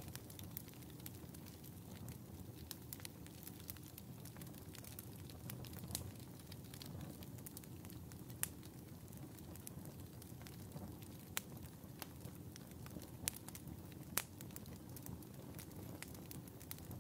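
Wood fire burning in a fireplace: a soft steady low hiss of the flames with irregular crackles and pops, a few sharper snaps standing out now and then.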